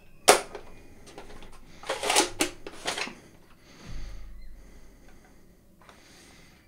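Sharp plastic clicks and rattles from handling a ZWQ S100s Baize bolt-action foam dart blaster: one loud click just after the start, a cluster of clicks around two to three seconds in, and a dull thump near four seconds.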